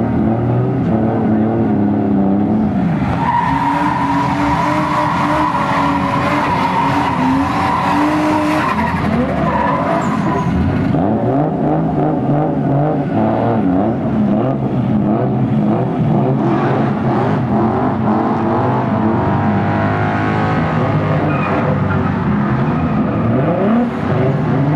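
Drift cars' engines revving hard and falling back as the cars slide sideways one after another, with tyres squealing and skidding. The tyre noise is loudest from about three to ten seconds in.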